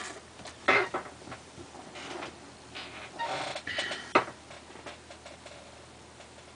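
Short sound effects from an animated grammar lesson played through a screen's speaker: a loud brief burst about a second in, a short tonal chime-like sound around three to four seconds, and a sharp click just after four seconds.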